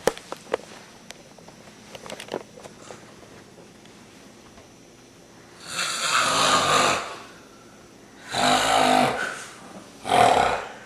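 A person snoring: three loud snores, each about a second long, a little over a second apart, in the second half.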